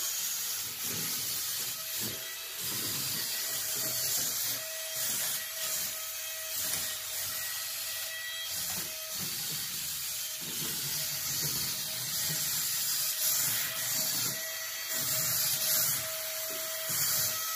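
The suction fan of a Mayouth wall-climbing remote-control car whirring steadily, with a thin whine that fades in and out, along with the car's drive motors and wheels rubbing and rolling.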